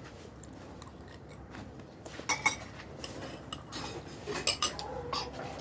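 Spoons and chopsticks clinking against bowls and dishes while eating: scattered sharp clinks, the loudest about two and a half seconds in and again around four and a half seconds in.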